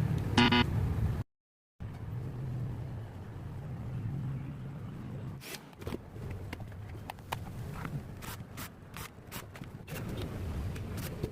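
Low background rumble of road traffic, with a short horn-like toot near the start, then scattered sharp clicks and scrapes of something being handled.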